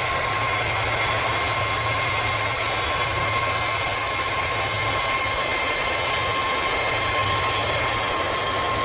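Boeing E-4B's four turbofan jet engines running at taxi power: a steady jet whine with constant high tones over a low rumble.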